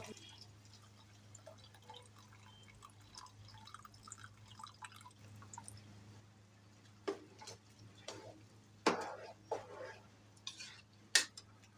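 Coconut milk pouring and dripping into a pot of rice, then several sharp clinks and knocks from a container or utensil in the second half, over a steady low hum.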